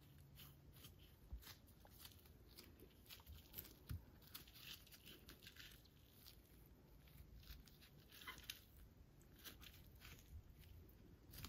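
Near silence, with faint scattered ticks and rustles from gloved hands pressing a Formica strip down onto a curved plywood bow form over tacky contact cement.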